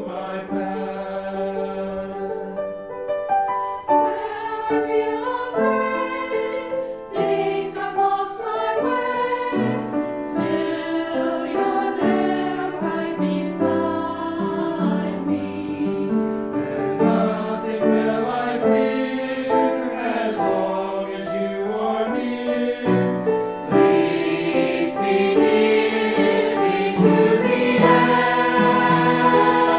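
A choir singing a hymn in harmony, with sustained notes that move together.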